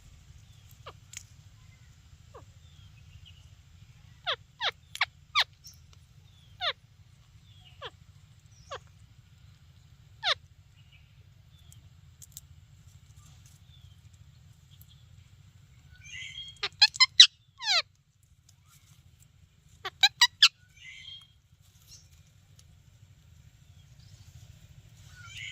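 Parrot giving short, sharp chirping calls that sweep down in pitch, singly and in quick runs of three or four, the loudest runs about two-thirds of the way through. A faint low hum lies underneath.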